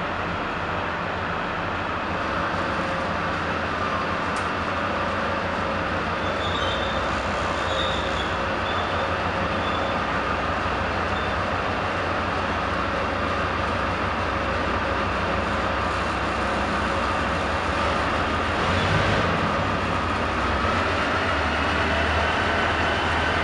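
Large diesel engine of an armoured tracked vehicle running steadily at idle. It swells briefly about two-thirds of the way through, and a deeper note comes in near the end.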